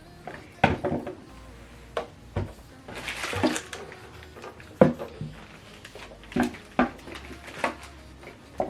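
Hard plastic soundbar parts being handled and set down: scattered knocks and clicks, with a brief rustle about three seconds in.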